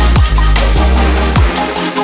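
Background electronic music with a heavy bass line and a steady drum beat, in a drum and bass style.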